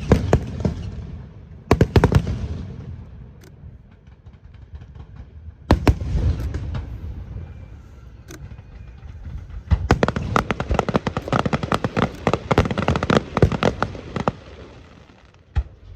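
Aerial fireworks bursting: a few separate loud bangs, each trailing off in crackle, then in the second half a long, dense run of rapid popping reports.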